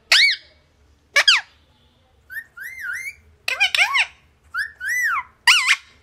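Rose-ringed (Indian ringneck) parakeet vocalizing: a run of short, high-pitched calls, each rising and then falling in pitch, coming faster in the second half.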